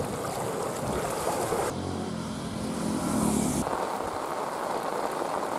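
Steady rushing outdoor noise with abrupt edits. From just under two seconds in until nearly four seconds in, a steady engine hum takes over.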